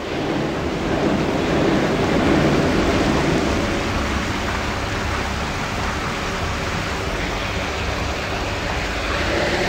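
Steady rush of pumped water pouring out of an irrigation line's fully open bypass, with a low rumble underneath. The pressure is too low for the rain gun to spray.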